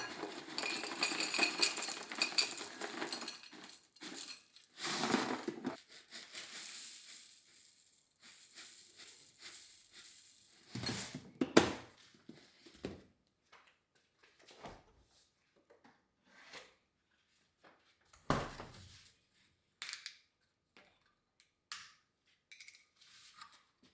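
Kitchen clatter from preparing breakfast: dishes and utensils clinking and knocking, busy for the first few seconds, then scattered single knocks and clinks.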